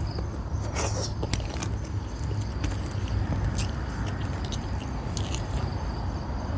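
Close-up chewing and mouth smacks of a person eating by hand, heard as irregular short clicks, over a steady trill of crickets and a low rumble.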